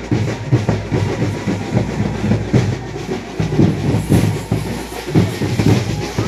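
Fast, dense drumming from a percussion ensemble, with rapid loud strokes that run on without a break.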